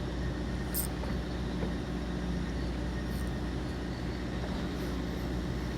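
Fishing boat's engine running with a steady low drone, with a few faint high ticks over it.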